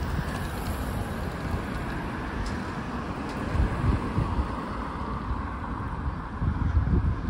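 Road traffic on a busy city street, a steady hum of passing cars, with wind buffeting the microphone in low gusts. The buffeting is strongest about four seconds in and again near the end.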